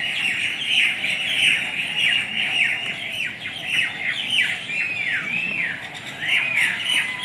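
A flock of birds calling steadily, with many short, high, swooping squawks, two or three a second and overlapping.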